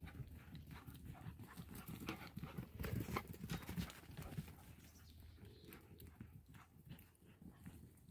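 Faint, irregular soft footsteps crunching and scuffing on dry, dusty ground, busiest and loudest a few seconds in.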